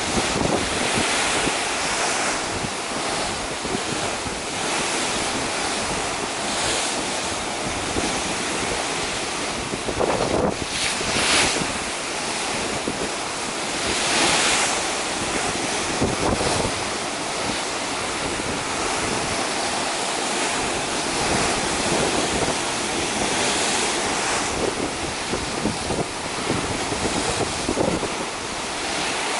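Rough sea rushing and churning into whitewater alongside a cruise ship, with wind buffeting the microphone. The rush swells louder a few times, most strongly about a third of the way in and again near halfway.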